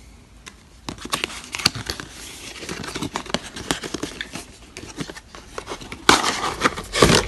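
Cardboard and clear plastic packaging of a GoPro camera box being handled and opened by hand: scattered small clicks and rustles, with a louder burst of rustling and crinkling near the end.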